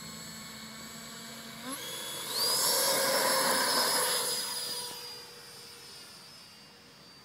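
70mm electric ducted fan of a radio-controlled F/A-18 model jet, whining steadily. The whine rises in pitch about two seconds in as the throttle is opened for takeoff. It is loudest as the jet runs past and lifts off, then fades as the jet climbs away.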